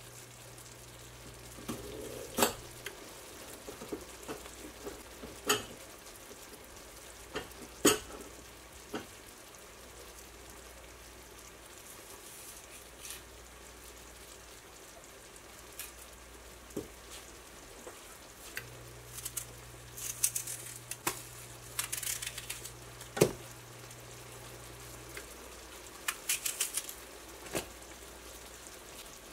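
Thick flour-thickened sauce simmering in a skillet with a faint steady sizzle. It is broken by a few sharp clicks and knocks of utensils and cookware. Near the end come short crackly bursts as pieces of onion are dropped into the hot sauce.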